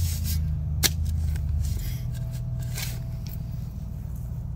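Steel shovel blade cutting and scraping into dry, grassy dirt: a few short crunches as it is driven in and a scoop lifted, over a steady low hum.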